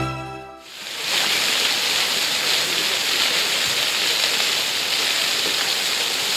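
Music fades out in the first half-second. Then comes the steady, continuous splashing of a plaza fountain, with many vertical water jets spraying up and falling back into shallow water.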